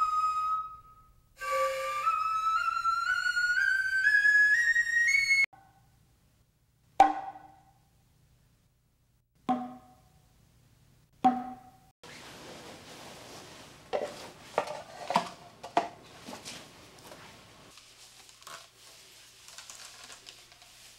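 A Noh nohkan flute plays a run of notes climbing step by step. After a pause come three single strokes on a kotsuzumi shoulder drum, each with a different tone set by the left hand's grip on the cords. Then there is rubbing and rustling with small clicks as the drum's cords are handled and tied.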